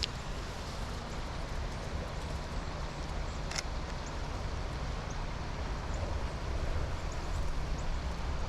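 Steady wind and soft rain in a forest, with a low wind rumble on the microphone and scattered light drips. A single sharp click sounds about three and a half seconds in.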